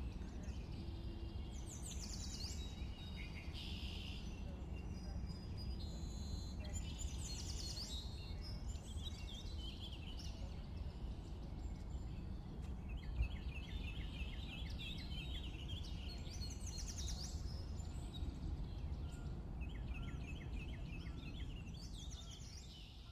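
Outdoor ambience of several songbirds singing and chirping over a steady low rumble, with high down-slurred notes and warbles and, in the second half, fast trills of repeated chirps.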